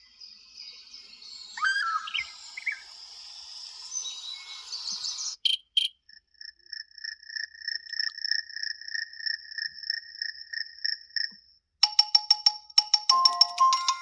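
Google Pixel 7a ringtones played through the phone's speaker. First a birdsong-like tone of chirps over a soft wash, then a rapid pulsing electronic trill held on two pitches for about five seconds. Near the end a new ringtone starts, with quick, bright, percussive notes in a repeating melody.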